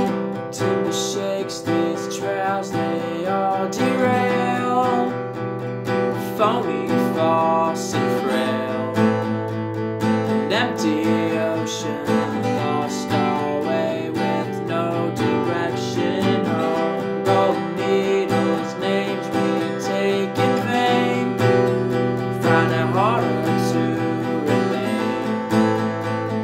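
Steel-string acoustic guitar strummed in a steady rhythm, with a man singing over it in several stretches.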